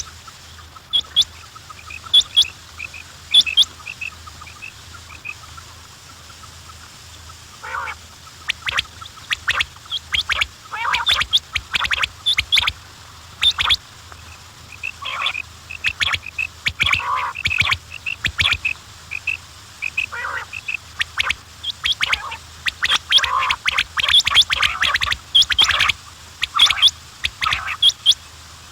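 Quails calling: short, sharp chirps, sparse at first, then from about eight seconds in many calls overlapping in a busy chorus.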